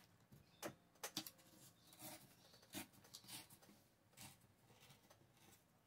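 Faint, scattered rustles and light taps of paper being handled and creased by hand, about half a dozen short sounds.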